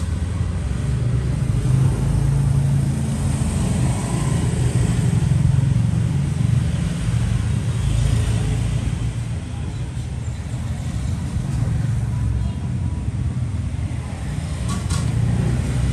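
Steady low rumble of road traffic, with a couple of sharp clicks near the end.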